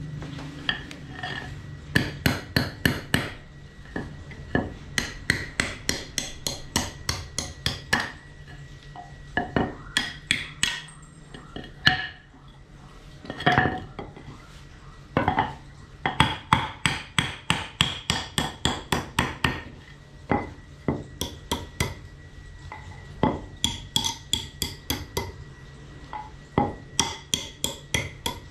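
Hammer blows struck in quick runs of about four or five a second, with short pauses between the runs.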